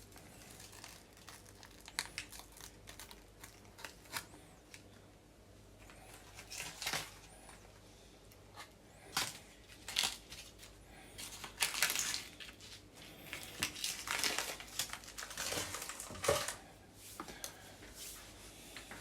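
Baking paper being peeled off a sponge cake, crinkling and tearing in short, irregular strokes with quieter gaps between them.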